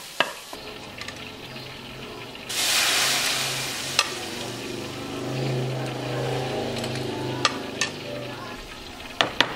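Garlic sizzling in a small hot frying pan. About two and a half seconds in, a ladleful of cooked beans and broth goes into the pan with a sudden loud hiss that fades over a second or two while the frying goes on. A few sharp clinks of the metal ladle against the pot follow.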